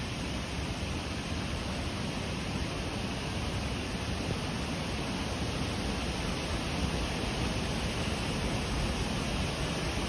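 Steady rush of a clear mountain river running over rocks, an even hiss that holds without a break.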